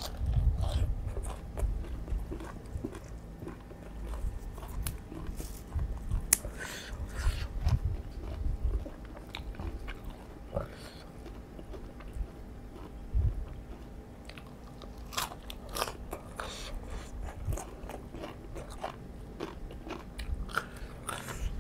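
A person biting and chewing raw vegetables and a spicy shrimp salad close to the microphone, with irregular crisp crunches and wet mouth sounds.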